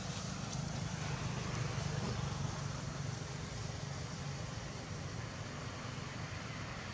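Steady background noise: a low rumble under an even hiss, with no distinct events.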